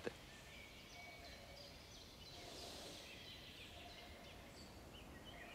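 Near silence: faint background ambience with a few faint, short, high chirps scattered through it.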